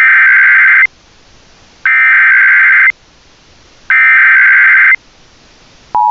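Emergency Alert System header: three loud, one-second blasts of warbling two-pitch digital data tones, about a second apart. The steady two-tone attention signal starts near the end.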